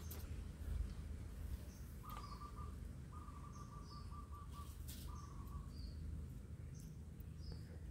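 Faint outdoor bird calls: short high chirps recurring about once a second and longer, lower-pitched calls lasting up to a second and a half, over a steady low rumble with a few clicks.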